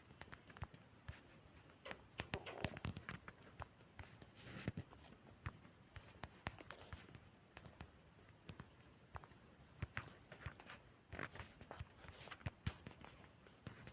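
Faint, irregular clicks and short rustles of someone moving about, with no steady rhythm.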